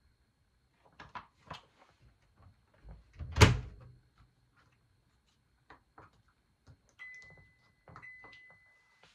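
Top-loading washing machine being closed with one loud thump, among a few light clicks and knocks. Near the end its control-panel buttons are pressed and an electronic beep sounds, one steady tone held for about two seconds.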